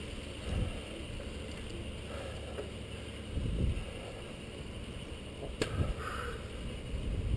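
Mountain bike rolling along a paved road: a steady low rumble of tyres and wind on the camera microphone, with a sharp click about five and a half seconds in.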